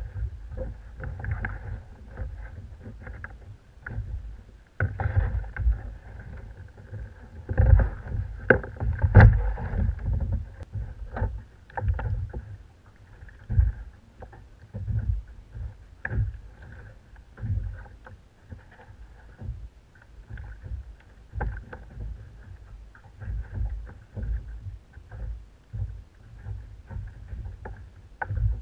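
Water slapping and knocking against a plastic sit-on-top fishing kayak's hull, with irregular low thumps and bumps. The knocks are loudest and most frequent about eight to ten seconds in.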